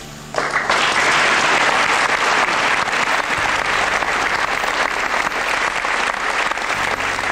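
Audience applauding, breaking out suddenly just after the start and then keeping up steadily.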